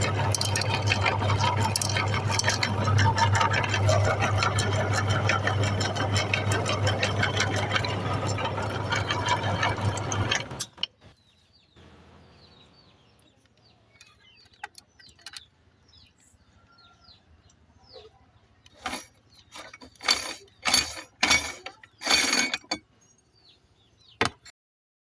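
Electric meat grinder running with a steady motor hum and crackling, cut off suddenly about ten seconds in. Then light clicks, and several short clattering knocks near the end.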